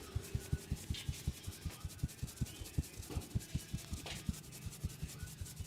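Hands massaging a head: a quick, even run of soft thumps, about five a second, with rubbing against hair and scalp.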